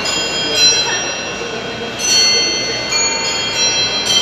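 Large ornate bracket clock chiming a tune on its bells: notes struck one after another, about one every half second, each ringing on under the next.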